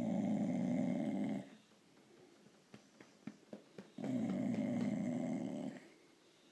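Blue Staffordshire bull terrier making a rough grunting, snoring noise twice, each lasting under two seconds, with a few short clicks in between. She makes this noise when she wants petting or attention.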